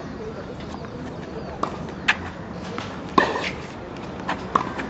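Tennis rally: a ball struck by rackets and bouncing on the court, five sharp knocks in an uneven rhythm, the loudest about three seconds in.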